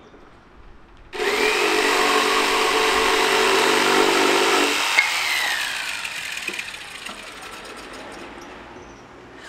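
Handheld corded power tool working a strip of wood: its motor starts abruptly about a second in with a rising whine and runs steadily for about four seconds. It is then switched off with a click and winds down with a long falling whine.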